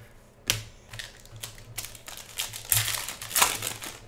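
Trading cards clicking and snapping as they are flicked through by hand, then a plastic card-pack wrapper crinkling for about a second near the end as the cards are pulled out of it.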